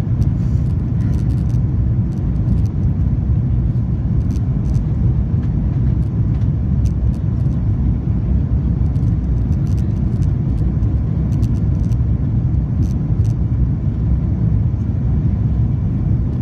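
Steady low rumble inside an Airbus A330-200 cabin in flight: jet engine and airflow noise heard from a window seat over the wing, with faint ticks of cabin rattle now and then.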